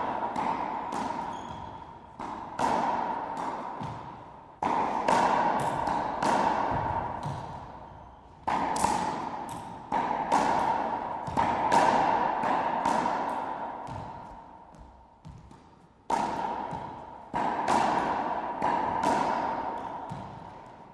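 Racquetball game: the ball struck by racquets and rebounding off the court walls and floor in quick runs of sharp hits, each followed by a long ringing echo, with short lulls between the runs.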